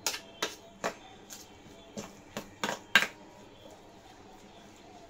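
Spoon knocking and scraping against a stainless steel bowl while stirring a thick sabudana batter: about eight light knocks spread over the first three seconds.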